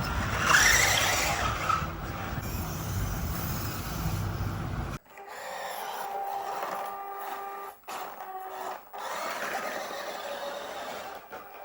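Small electric motors and plastic gearboxes of radio-controlled toy construction vehicles whirring, with a low rumble and a short rising whine at first, then after an abrupt change about five seconds in a steady motor whine that stops and restarts twice.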